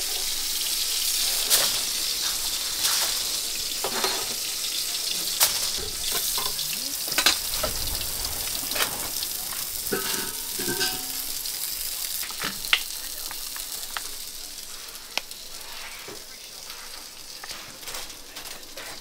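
Chicken and beef burger patties sizzling in a grill pan, a steady high hiss with a few sharp clicks, fading gradually toward the end.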